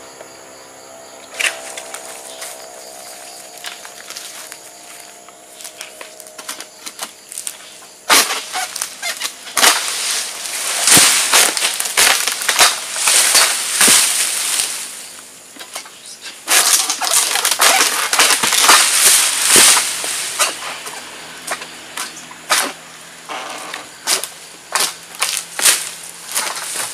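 Oil palm fronds and dry leaf litter rustling and crackling in dense bursts, with sharp snaps, loudest through the middle. A faint tone fades out over the first several seconds.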